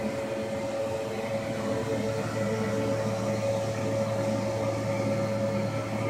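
Boat blower fan running steadily in a homemade air cooler: a steady motor hum and whine over the rush of moving air.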